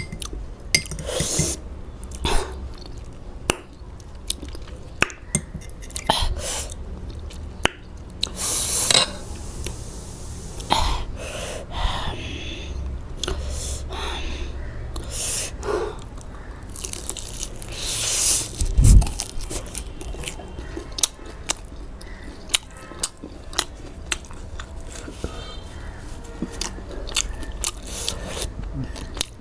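Close-miked eating: a person chewing and biting food, with many short wet mouth clicks and crunches. A few longer breathy bursts come about nine seconds in and again near the middle.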